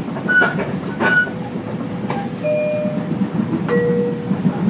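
Inside a Long Island Rail Road commuter train car: the steady rumble of the train running, with a thin steady whine, sharp clicks and short metallic squeals, as the train comes into a station.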